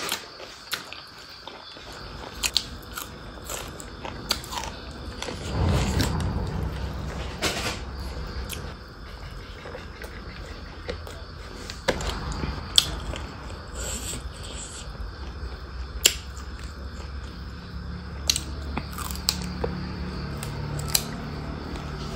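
Close-up eating sounds of a person chewing mouthfuls of rice and pork curry eaten by hand, with scattered short clicks and smacks. A low steady hum runs underneath, louder from about six seconds in.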